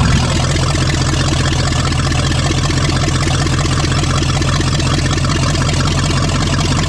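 Engine of a 1988 Chevy K1500 pickup running steadily at idle, now starting and running after a no-start that was traced to distributor timing set too far advanced.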